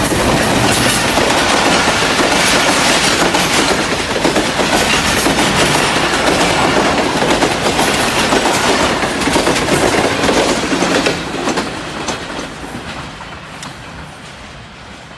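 Express passenger train's coaches passing close at speed: a loud rushing clatter with rapid wheel clicks over the rail joints, fading away over the last few seconds as the end of the train recedes.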